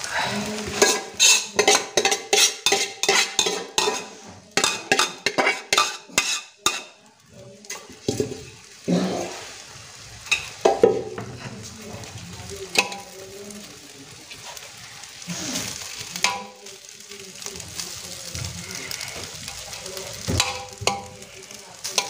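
Steel spoon scraping and knocking against a large aluminium pot as rice is spread in a layer over chicken gravy for biryani: a quick run of strokes, about two or three a second, for the first seven seconds, then only an occasional knock. A low sizzle from the cooking gravy underneath.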